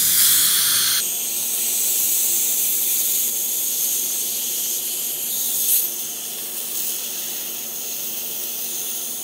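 A steady high hiss of dental-office equipment, with a faint steady hum under it, while orthodontic brackets are pried off the teeth with debonding pliers. A single brief click comes about five and a half seconds in.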